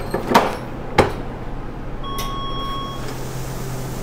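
Metal clatter and a sharp clunk as the lid of a commercial pressure fryer is closed and locked down for frying chicken under pressure, then a single electronic beep lasting about a second, over the steady low hum of kitchen equipment.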